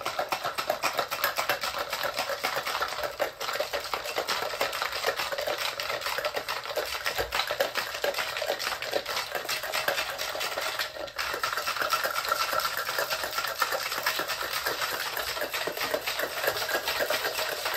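Ice cubes rattling hard inside a stainless steel cocktail shaker being shaken vigorously, a fast continuous clatter. This is the shake of an egg-white whiskey sour with ice.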